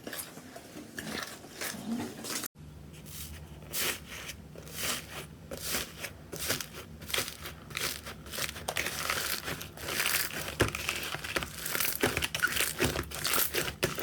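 Slime being squeezed and worked, crackling and crinkling in quick, dense clicks, with a sudden cut about two and a half seconds in after which the crackling grows busier.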